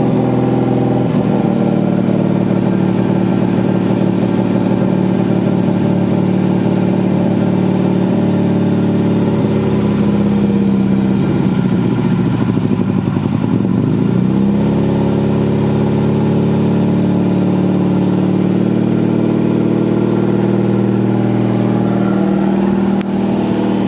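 MK2 Ford Fiesta's petrol engine running steadily after sitting for six months, held on the throttle because it won't idle on its own. The revs waver about halfway through and then settle back to a steady note.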